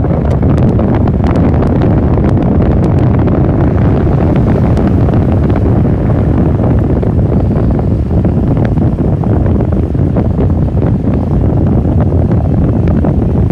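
Loud wind buffeting on the microphone: a dense, steady low rumble with frequent small crackles.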